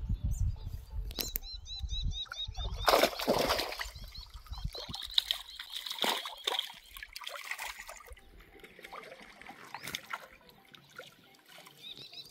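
Lake water splashing and sloshing in a few loud bursts, with trickling and dripping between them. A quick run of about ten short high chirps comes a little over a second in.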